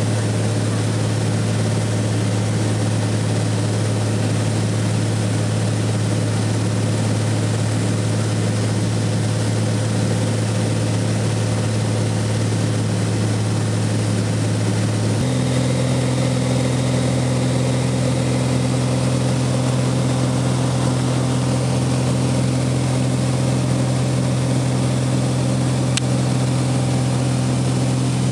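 Cessna 182 piston engine and propeller droning steadily in cruise, heard from inside the cabin. About halfway through, the drone steps up slightly in pitch and holds there.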